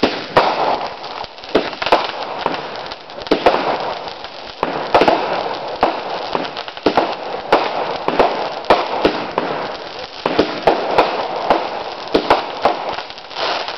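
Consumer fireworks going off in a rapid, irregular string of sharp pops and bangs, several a second, with a steady crackle between them.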